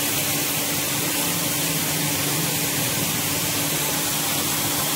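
Electric pressure washer spraying a wide fan of water onto bare skin and concrete: a steady, even hiss of water spray, with a steady low hum of the washer's motor running underneath.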